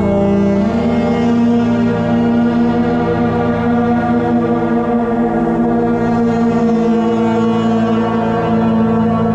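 Slow drone music from a church pipe organ and a violin: long held notes layered over one another, with a new higher note coming in about a second in and holding.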